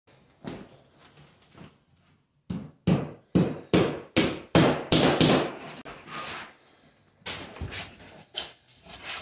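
Claw hammer nailing mass loaded vinyl to wooden framing. A few light taps, then a fast run of sharp blows about two to three a second starting a couple of seconds in, a few with a short metallic ring, then lighter knocks near the end.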